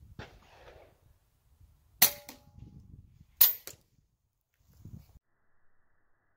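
Two rifle shots about a second and a half apart, each a sharp crack followed a moment later by a smaller click, with faint knocks before and after.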